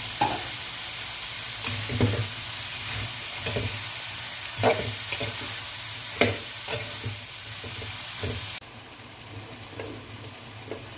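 Vegetables sizzling in a hot pan while a spatula stirs them, knocking and scraping against the pan every second or so. The sizzle drops off suddenly near the end.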